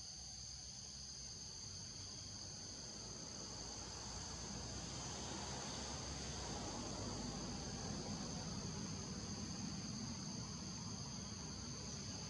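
Steady chorus of insects in the forest canopy: a continuous high-pitched drone at two pitches, over a faint low rumble and hiss that swells a little midway.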